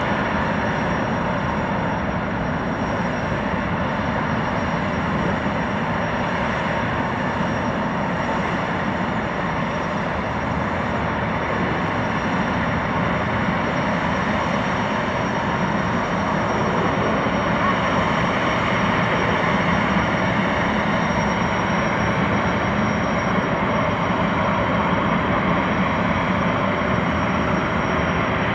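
Jetfoil's gas turbines and waterjets running as the hydrofoil moves slowly hullborne: a steady jet-engine rush with a thin high whine on top, growing a little louder in the second half as it passes close.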